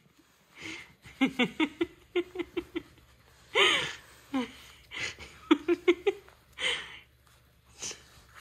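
A person laughing in several runs of short, quick pulses, with breathy bursts in between.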